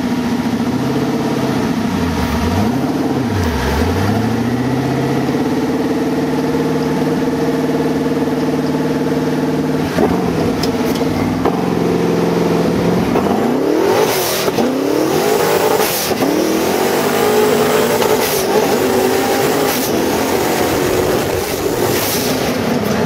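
Twin-turbo LS V8 engine of a sand rail running hard under load. Its pitch dips and climbs twice in the first few seconds, holds steady for several seconds, then sweeps up and down repeatedly in the second half as the throttle and gears change.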